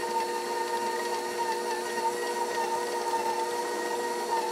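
KitchenAid stand mixer running steadily with its beater attachment, a steady motor whine of several held tones, as it mixes a thick sausage-meat filling.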